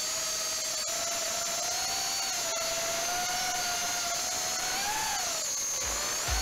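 Flywoo Ant 3-inch FPV quadcopter's brushless motors whining in flight, picked up by its onboard camera; the pitch wavers with throttle and rises briefly about five seconds in before dropping back.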